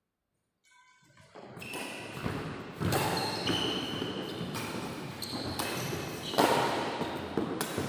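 Badminton rally in a large, echoing hall: sharp racket hits on the shuttlecock and the players' footwork on the court, a few hits spaced a second or two apart. Silent for about the first second.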